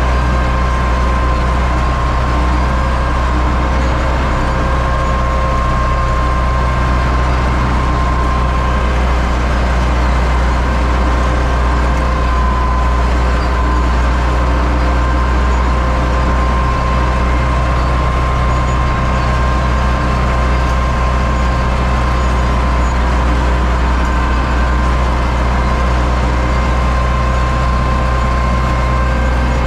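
Universal U650 tractor's four-cylinder diesel engine running steadily, with a constant high whine on top of the engine's low sound.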